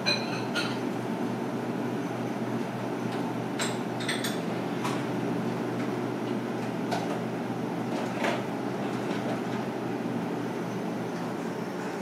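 Steady low machine hum of restaurant room tone, with a few light clinks and taps of tableware. The first clink comes about a tenth of a second in and rings briefly. Others are scattered through the middle.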